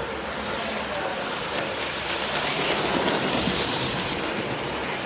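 Model diesel locomotive rumbling past along the track, the rush of its wheels and motor on the rails getting louder about two seconds in as it passes close, then easing slightly.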